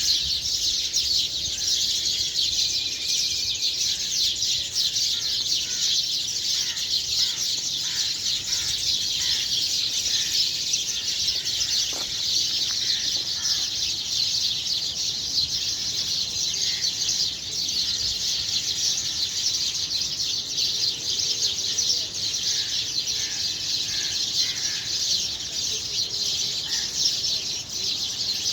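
A dense morning chorus of many small birds chirping at once: a continuous wash of quick, high chirps with separate short calls standing out over it.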